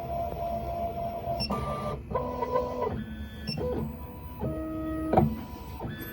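Miracle A9 key cutting machine's stepper motors moving the carriage and probe through an automatic calibration run. It is a series of short whining tones that change pitch with each move, with a sharp click about five seconds in.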